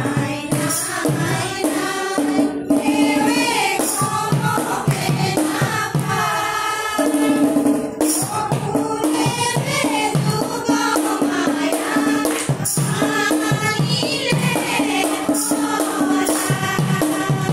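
A group of women singing an Assamese dihanam devotional song in unison, keeping time with steady rhythmic hand-clapping.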